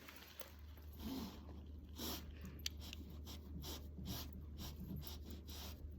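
Paintbrush working on canvas in a run of short, quick scratchy strokes, over a low steady hum.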